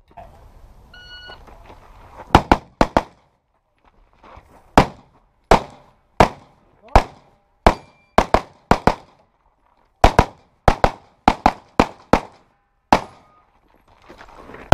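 A shot timer gives one short electronic start beep, and about a second later a handgun fires rapidly: some twenty shots in quick pairs and triples with short pauses between.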